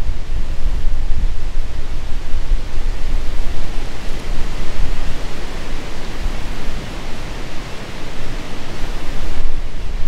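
Strong wind gusting through the woods, with the wind buffeting the microphone as a low rumble. The hiss of wind through the trees grows louder around the middle.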